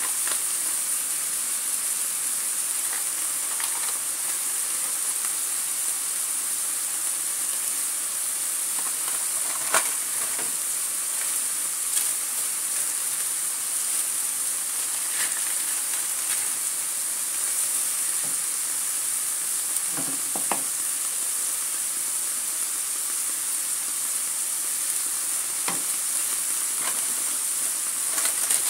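Shrimp and chilies in a little liquid sizzling in a wok, a steady hiss. There are a few short clicks and scrapes from a wooden spatula stirring.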